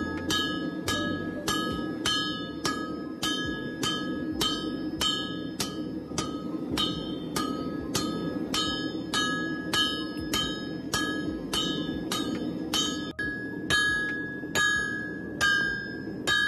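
Hand hammers striking hot leaf spring steel on an anvil, about two blows a second in a steady rhythm, each blow followed by the anvil's bright metallic ring. The blows come from two strikers taking turns as they draw out the steel. The last few blows are harder.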